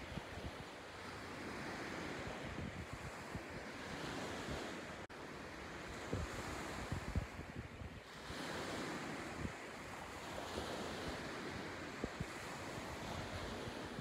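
Small waves lapping on a beach, the wash swelling and easing every few seconds, with wind buffeting the microphone.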